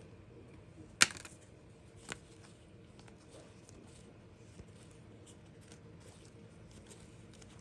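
Trading cards being handled and flipped through, with faint rustles and small ticks. There is a sharp click about a second in and a softer one about two seconds in.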